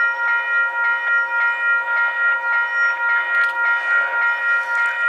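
Railway level-crossing bell ringing steadily, about two strokes a second, as a CPKC train passes. A few sharp clicks come from the train about three and a half seconds in.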